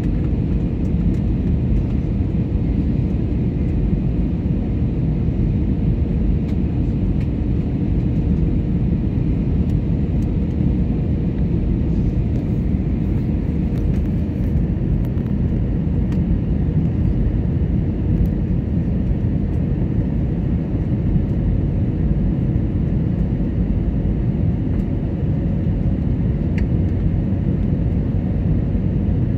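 Steady low cabin rumble of an Airbus A320neo airliner in descent: engine and airflow noise heard from a window seat over the wing, with a faint steady hum on top.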